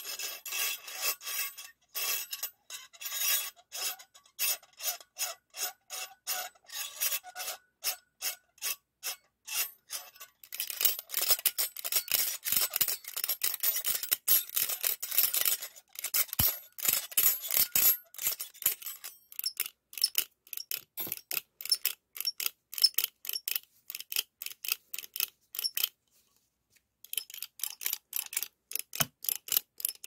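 Stainless steel ice cream scoop worked close up, its thumb lever squeezed over and over so the geared blade scrapes round inside the bowl: a quick run of metallic rasping clicks, several a second, pausing for about a second near the end.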